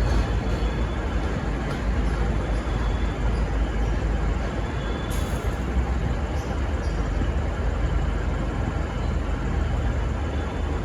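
Diesel-hauled passenger train rumbling steadily as it pulls out, with no horn sounding.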